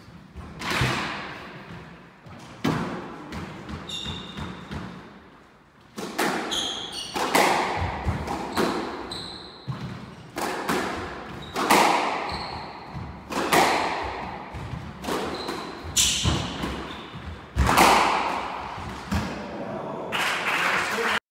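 Squash ball hit back and forth on a glass-backed court: sharp racket and wall strikes every one to two seconds, each ringing out in the court, with short shoe squeaks on the wooden floor between them.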